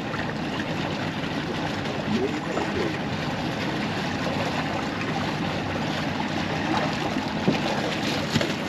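Water rushing and splashing steadily along the hull of a slowly moving boat, with the low, even hum of a Suzuki 350 outboard underneath.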